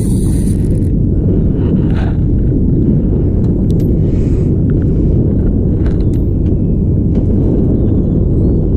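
Wind buffeting the microphone: a loud, steady low rumble with a few faint clicks.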